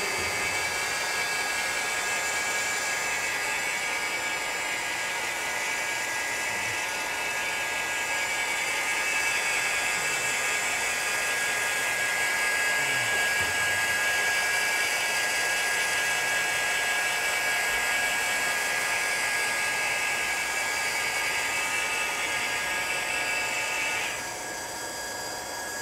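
Handheld plastic welding gun running steadily, a whine over rushing hot air, as its nozzle is pressed into a crack in a plastic boat hull to weld it. About two seconds before the end it turns quieter.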